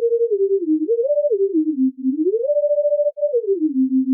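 Monophonic sine-wave lead patch in the Vital synthesizer playing a short melody, one note at a time, each note sliding into the next. A detuned unison voice makes the tone beat like a fast vibrato. A high note is held about two and a half seconds in, and the line glides back down to a low note near the end.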